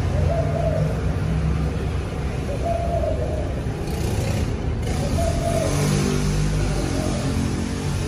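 A steady low rumble, with a short hooting call heard three times, about every two and a half seconds.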